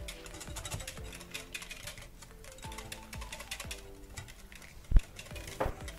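Wire whisk beating soft butter with sour cream and oil in a glass bowl: quick, light clicking and scraping against the glass, with one sharper knock about five seconds in. Background music plays underneath.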